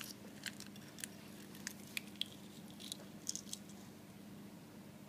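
Faint clicks and scrapes of a metal spoon against a peeled hard-boiled egg and the plate as the yolk is scooped out, over a steady low hum.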